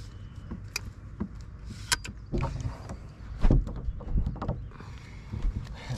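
Scattered clicks and knocks of a landing net and gear being handled on a bass boat's deck, with a louder low thump about three and a half seconds in.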